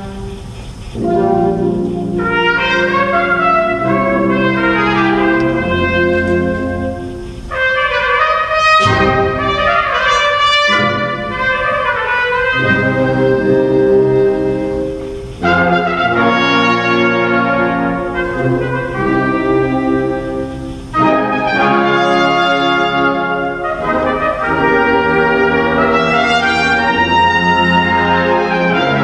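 Concert wind band playing with a solo trumpet: continuous brass-led music in phrases with short breaks between them.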